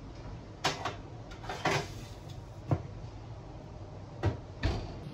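Metal baking trays clanking and scraping against the wire racks of a wall oven, a few separate knocks. Near the end the oven door is swung shut with a thud.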